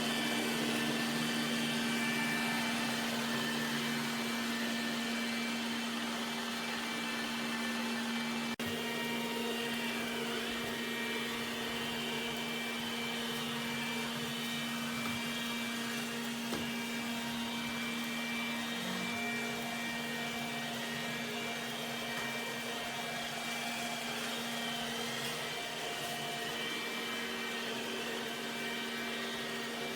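Robot vacuum running steadily: an even motor hum and whir, with one sharp break about a third of the way through.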